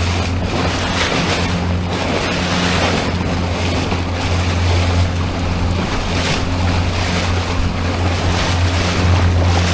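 Small boat's outboard motor running steadily under way, a low even drone, with water rushing past the hull and wind buffeting the microphone.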